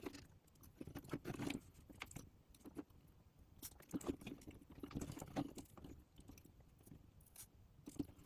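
Faint, irregular small clicks and taps of hand tools and small plastic and metal parts being handled while the motor wires of an HO-scale model locomotive are swapped over.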